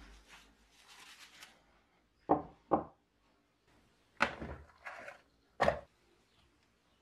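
Paper towel rustling briefly, then five sharp knocks of hard objects set down on a wooden workbench: two close together about two seconds in, then three more as a plastic O-ring assortment case is put down and opened.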